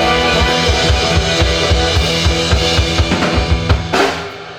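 Live rock band playing an instrumental ending: rapid, evenly spaced kick and snare hits, about four a second, over a held bass and guitar chord. The band drops away about four seconds in.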